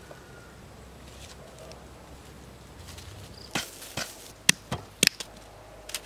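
Sticks knocking and cracking: a quick run of about seven sharp wooden knocks in the second half, as thin sticks are worked into a stick fence.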